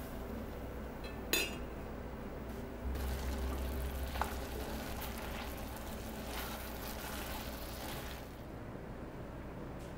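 Diced apples sizzling softly in sugar in a stainless steel saucepan, over a steady low hum. About a second in the metal lid clinks sharply on the pan, and around four seconds a spatula scraping through the apples gives a short metallic ping.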